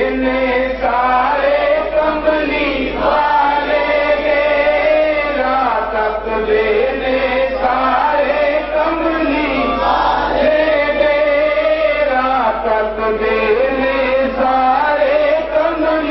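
A man chanting a naat, a devotional poem in praise of the Prophet, in a melodic voice with long held notes that bend in pitch.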